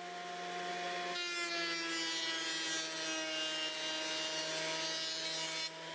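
Benchtop thickness planer running with a steady motor whine. About a second in, a thin maple strip feeds into the cutterhead and a loud planing noise joins it, the motor's pitch sagging slightly under the load, until the cut ends shortly before the close.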